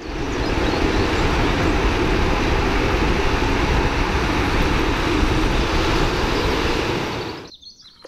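Steady rushing noise of wind and wheels from drift trikes speeding down an asphalt road, heard on a rider's camera with heavy wind on the microphone. It starts suddenly and dies away shortly before the end.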